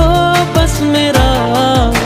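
Bollywood song playing: a held, wavering sung melody over a steady, deep, falling-pitch kick beat about every 0.4 s.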